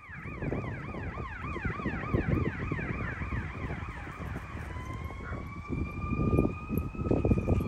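Emergency vehicle siren in a fast yelp, quick up-and-down sweeps about three a second, switching a little over halfway through to a slow, long rising wail. A low rumbling noise runs underneath.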